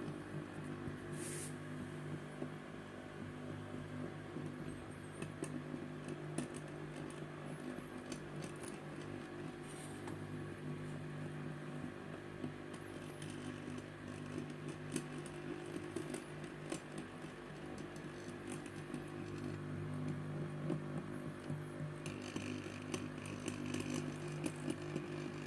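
Small electric gear motor running steadily, driving 3D-printed plastic gears that turn a water stopcock valve, a constant hum with scattered ticks and clicks from the gear teeth. A brighter rasping edge joins the hum about 22 seconds in.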